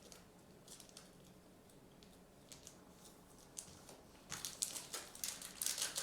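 Trading cards being handled: faint scattered clicks of cards slipping against each other, then from about four seconds in louder rustling and scraping as cards are slid and shuffled.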